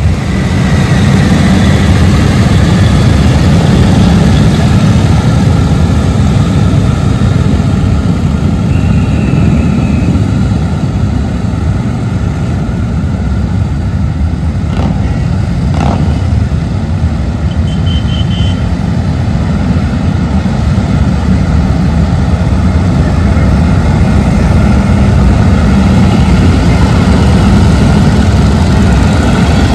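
Motorcycle engines running in a steady, loud low rumble, easing a little around the middle.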